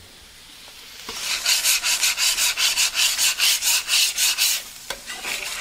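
Flat top griddle surface being scraped in quick, even back-and-forth strokes to lift caked-on residue softened with water. The strokes start about a second in and stop just before the end.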